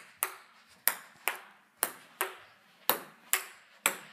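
Table tennis rally: a ping-pong ball clicking in turn off paddles and the table, about eight sharp pops at an even pace, each with a short ring.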